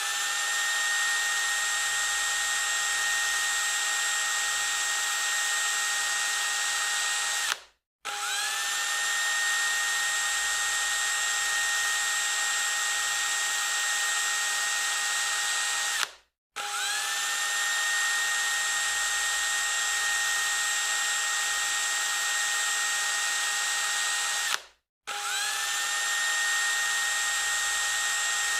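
Electric drill running at full speed with a steady high whine. It cuts out three times, each for a fraction of a second, and spins back up to speed with a rising whine each time.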